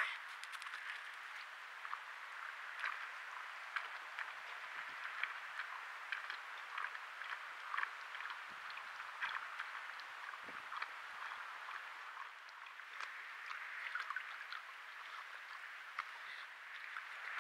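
Javelina (collared peccary) chewing and crunching food at a feed bowl: many small irregular crunches over a steady hiss, with a sharp click right at the start.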